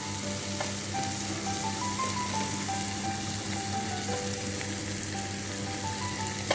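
Onion, tomato and curry-spice masala sizzling and frying in oil in a very hot pan, a steady crackling hiss. Faint background music plays underneath.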